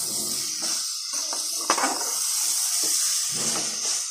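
Chopped radish bhuji frying in a metal kadai with a steady sizzle, while a metal spatula stirs and scrapes against the pan, with a sharper clink about one and a half seconds in.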